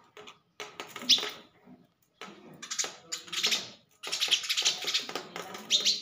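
House sparrows chirping in three bursts of rapid chirps with short pauses between them. This is the agitated calling of a sparrow fighting its own reflection in a mirror.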